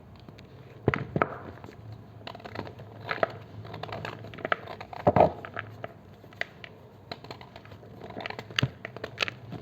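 Knife cutting into a block of gym chalk, making irregular crunches and crumbling crackles, with the sharpest cracks about a second in, around the middle, and near the end.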